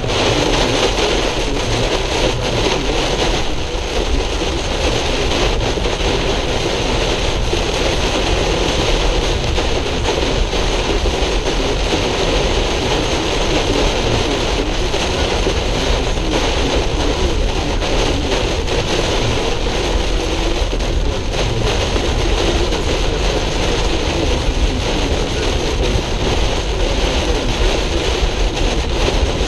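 Steady, loud rushing noise of a car driving through a severe thunderstorm, with heavy rain and wind beating on the vehicle and tyres on the wet road.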